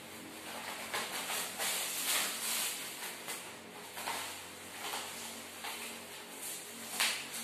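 Clear plastic packaging bag crinkling and rustling as it is handled and opened, in irregular bursts, with a louder crackle near the end.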